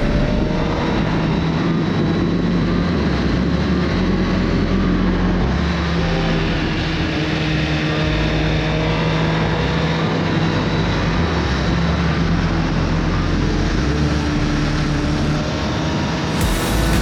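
Suzuki GSX-R1000R inline-four engine running on the move, with wind noise over it. The engine pitch shifts up and down in steps a few times.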